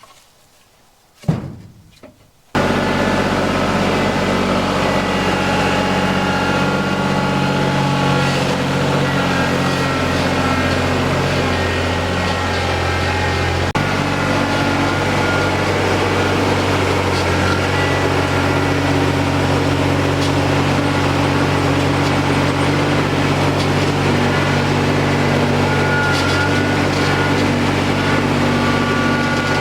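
A few light knocks, then a tractor engine running steadily from about two and a half seconds in; its pitch steps down slightly about halfway through.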